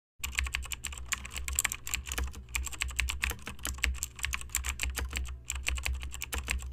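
Rapid keyboard typing: a quick, uneven run of key clicks over a low steady hum, a typing sound effect.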